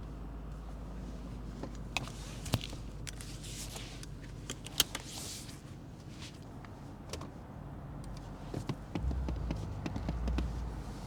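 BMW M8 Competition's twin-turbo V8 running with a low, steady rumble at light load, with a few sharp clicks and taps in the first half; the engine note swells louder from about nine seconds in.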